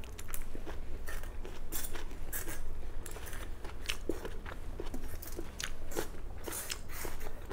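A person chewing food close to the microphone: irregular crunches and wet mouth clicks, with no steady rhythm.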